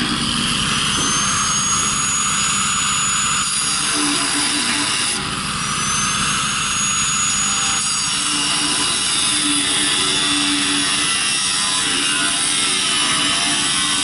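Angle grinder with a cutoff wheel cutting through the steel wall of a propane tank: a steady, harsh grinding with a high whine, which eases briefly about five seconds in.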